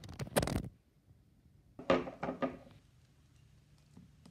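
Handling knocks and rustling from shrink-wrapped DVD cases being moved about, in two short bursts: one at the start and one about two seconds in, with a light knock near the end.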